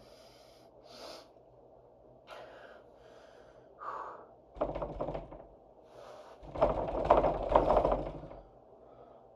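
A man's soft breaths and sighs, then rustling and creaking as he shifts in his chair. The loudest rustle lasts about a second and a half, near the end.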